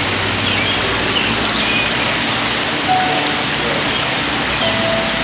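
Steady rushing hiss of running water, such as a garden stream or small waterfall, with faint high bird chirps over it.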